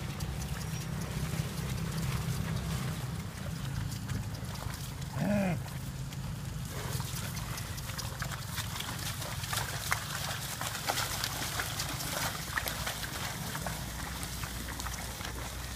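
A pair of water buffalo haul a wooden plough through wet paddy-field mud: irregular splashing and squelching from hooves and ploughshare, thicker in the second half, over a steady low rumble. A single short call rises and falls about five seconds in.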